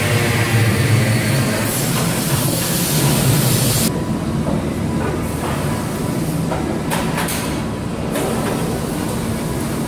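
Loud, steady industrial machinery noise in a metal fabrication shop: a low hum under a constant rush. The rush loses its hiss abruptly about four seconds in, and a few faint knocks come a few seconds later.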